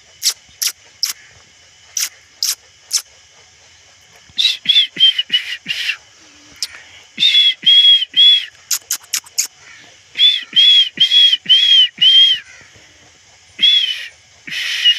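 Birds calling: a run of sharp high chirps, then groups of four or five short, arching whistled notes, repeated several times.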